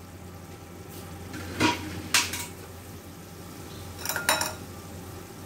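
Cookware clinking: a glass pan lid and metal utensils knocking against a pan, in three short bursts about 1.5, 2 and 4 seconds in, each ringing briefly.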